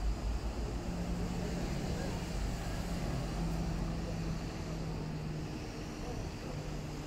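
City street traffic running steadily: a low rumble with a steady engine hum that holds for several seconds in the middle.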